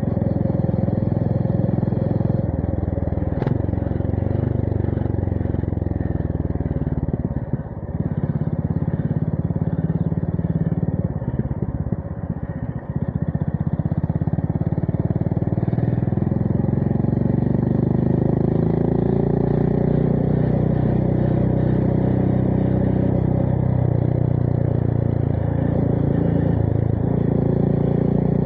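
Honda GB350S's air-cooled single-cylinder engine running through a MILLER Spitfire slip-on exhaust while riding. The throttle closes briefly about 8 s in and again around 12 s, then the engine pulls up through the revs with a rising pitch, easing off once more near the end before picking up again. A single sharp click sounds about 3.5 s in.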